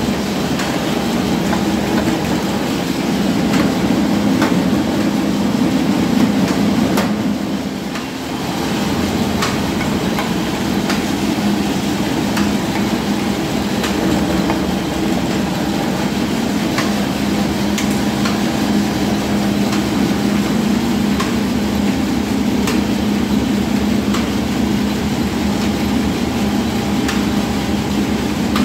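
Belt-driven masala pulverizer (spice grinding mill) running steadily while grinding spice to powder, a loud, even hum with scattered sharp ticks. Its loudness dips briefly about eight seconds in, then settles again.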